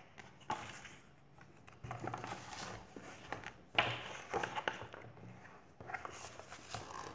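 Pages of a picture book being turned and handled, the paper rustling in several short bursts.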